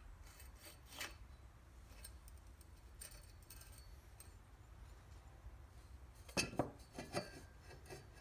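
Light metal-on-metal clicks and clinks from Cub Cadet steering column parts, the steering shaft and its bearing races, being handled and slid into the cast housing. A few faint clicks come first, then a quick cluster of sharper clicks about six to seven seconds in.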